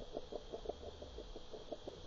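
Fishing lure being retrieved underwater, heard through a submerged camera: a fast, irregular run of faint knocking pulses.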